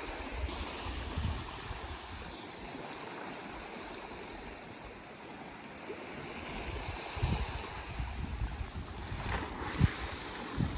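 Ocean waves washing on the beach, a steady surf hiss, with wind buffeting the microphone in low gusts that grow stronger in the last few seconds.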